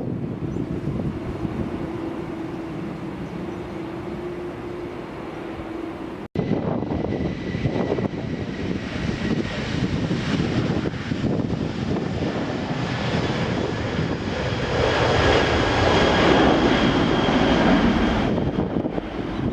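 Jet airliner engines at high power, a rumble with high steady whines that swells to its loudest near the end and then drops back. The sound breaks off abruptly about six seconds in.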